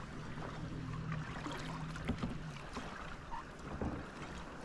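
Light water splashes and drips around a kayak on calm sea, with wind on the microphone. A low steady hum fades out about halfway through.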